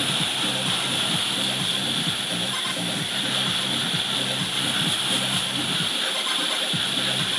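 Hot air rework station blowing a steady hiss of hot air from its nozzle onto surface-mount parts on a circuit board, reflowing the solder.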